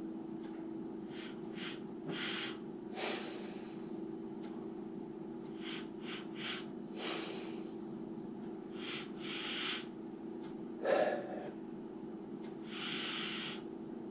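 A person sniffing a glass of milk stout to take in its aroma: repeated short sniffs through the nose, some in quick pairs, with a longer draw now and then. A steady low hum runs underneath.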